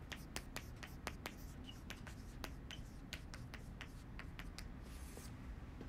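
Chalk writing on a blackboard: a quick, irregular run of sharp taps and short scratches as the letters are chalked up.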